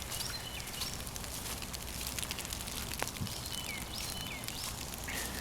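Small birds chirping: short high notes, several with a quick downward drop, in a cluster near the start and again about four seconds in, over faint rustling and a steady low outdoor rumble.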